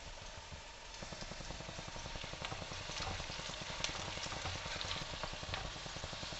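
Chopped red onions sizzling and crackling in hot oil in a non-stick kadai, the crackle getting denser about a second in. A slotted spatula stirs them, adding a few light scrapes and taps against the pan.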